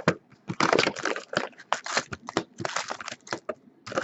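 Crinkling, crackling and tearing of the wrapping on a trading-card box being opened by hand, in quick irregular bursts.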